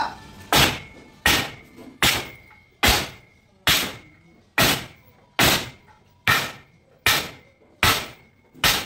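A wooden beam struck again and again against a steel bench rig holding a wrench on a bolt: eleven heavy blows, about one every 0.8 s, each with a short metallic ring.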